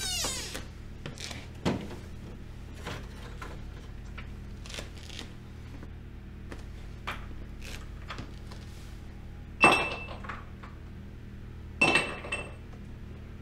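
Ice cubes dropped into a glass tumbler, two sharp ringing clinks about two seconds apart near the end, after a stretch of light knocks and handling sounds over a low steady hum.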